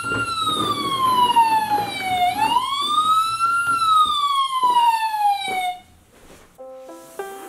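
Ambulance siren wailing, its pitch sliding slowly up and down twice before cutting off suddenly. About a second later plucked music notes begin.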